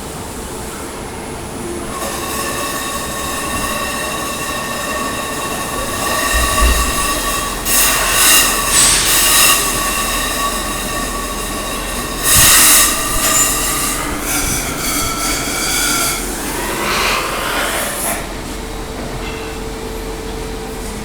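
Stepper motors of a mini CNC router whining as the machine runs its programmed moves. The whine steps to a higher pitch partway through and stops near the end. A steady hum runs underneath, with a few louder rushing bursts in between.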